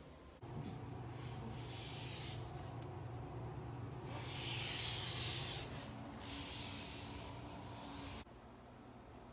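A cloth wiping around the porcelain base of a toilet and the tile floor beside it: three long rubbing strokes, the middle one the loudest.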